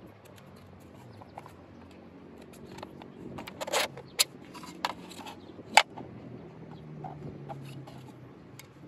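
Hard plastic 3D-printed rotor cover being handled and opened: light rustling of cord and cloth with a few sharp plastic clicks and knocks in the middle, the sharpest about six seconds in.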